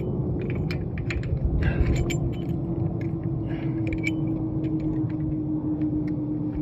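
Jet airplane passing overhead: a steady low rumble with a held whine that slowly drops in pitch. Light metallic clicks and taps from the brake caliper piston tool being handled sound over it.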